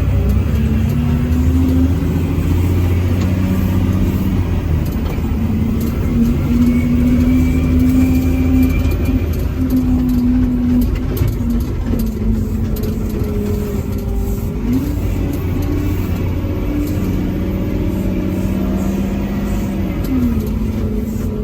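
Caterpillar 730 articulated dump truck's diesel engine running under load, its pitch stepping up and down several times over a steady low rumble.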